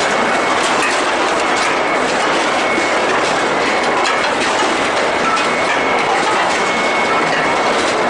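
Heavy chain-plate conveyor running in a steel ball hot-rolling line: a steady, dense metallic clatter with many small clicks, over a faint high whine.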